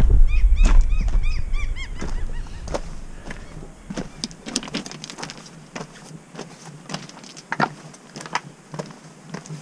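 Wind buffeting the microphone for the first two seconds, with a rapid run of about ten short high chirps over it. After that, boots crunch and scrape on rough rock, with irregular clicks of stones underfoot.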